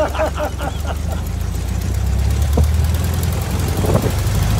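Volkswagen Thing's air-cooled flat-four engine running steadily, freshly tuned up.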